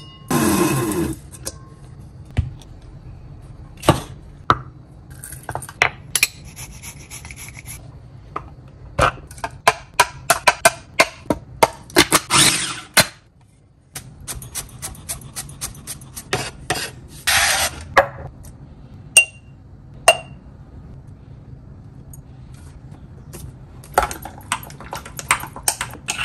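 Kitchen prep noises: whole cloves tipped from a metal tray into a blade spice grinder, then a run of quick sharp knocks on a wooden cutting board, and near the end a metal spoon clinking in a glass jar.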